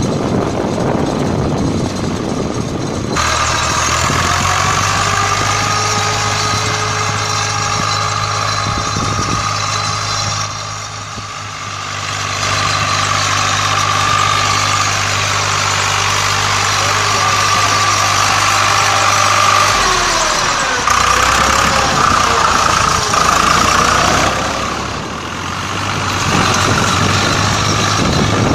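Swaraj 735 tractor's three-cylinder diesel engine running steadily as it pulls a puddling leveler through a flooded paddy. The engine note changes abruptly about three seconds in and dips and rises again around twenty seconds in.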